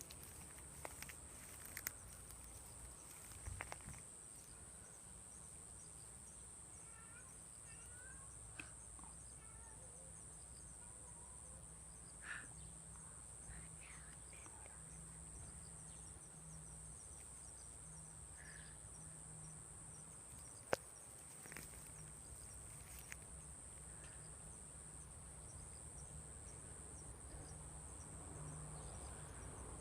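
Quiet outdoor ambience with a steady high insect drone, a few faint bird chirps, and one sharp click about twenty seconds in.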